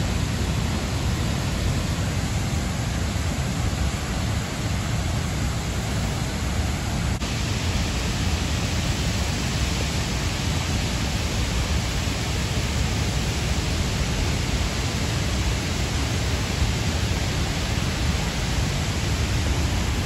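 Waterfall plunging into its pool: a steady, loud rush of falling water. The tone brightens slightly about seven seconds in.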